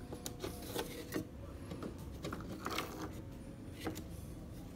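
Irregular small clicks and taps of thin dry twigs being handled and pressed down onto a thin wooden board.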